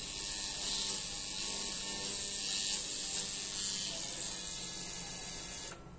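Static hiss from a Kenwood KT-313 FM/AM tuner played through speakers as its tuning dial is swept between stations, the noise shifting as the knob turns. It cuts off abruptly near the end.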